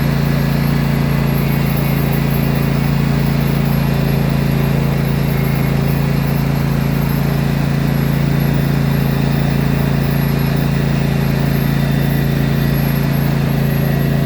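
Craftsman T260 lawn tractor's engine running steadily at a constant pitch while the tractor drives.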